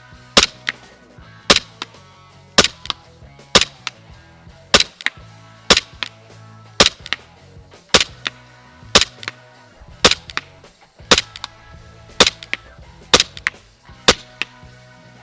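Umarex Glock 17 Gen 4 gas blowback airsoft pistol firing single shots, about one a second, each a sharp crack often followed by a fainter click. Background music plays underneath.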